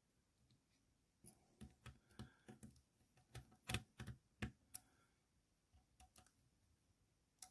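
Faint, irregular clicks and scratches of a small screwdriver driving screws into the plastic underframe of an Airfix Royal Scot model locomotive's tender. The clicks come in a quick run through the first half and stop, with a couple of stray ones later.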